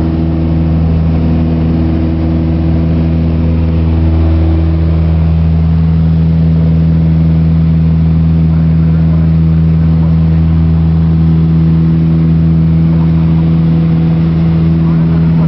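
Piper PA-28-181 Archer's four-cylinder Lycoming engine and propeller droning steadily, heard from inside the cabin during the climb-out after takeoff. A constant low hum holds one pitch, a little louder from about four seconds in.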